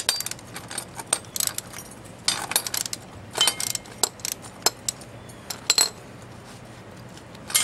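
Irregular metallic clicks and clinks from a socket ratchet working the last nut off the bolt of a steel mower handle brace, in short runs with a brief ring from the metal now and then.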